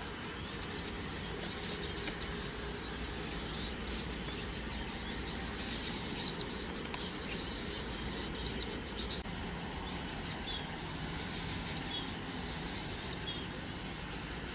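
Insects trilling in high, buzzing bursts a second or two long, one after another, over a steady low background rumble.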